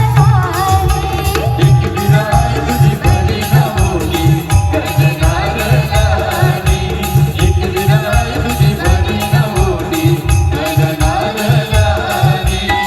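A band playing a Marathi devotional song: a fast, dense drum beat heavy in the bass, under a wavering melody line.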